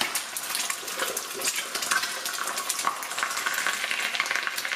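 Eggs frying in hot oil in a wok: a steady sizzle with many small crackles and pops.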